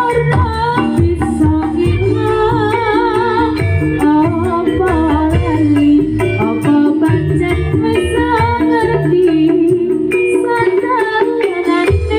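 Live jaranan gamelan music in campursari style, with a singer's wavering melody over the ensemble that plays continuously without a break.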